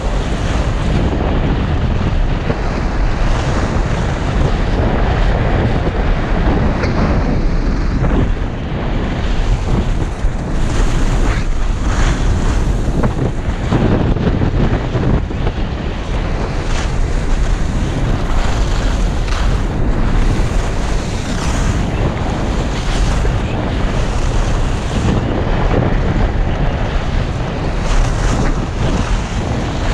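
Wind rushing over the microphone of a skier going downhill, with the hiss and scrape of skis carving turns on groomed snow, swelling and fading with each turn.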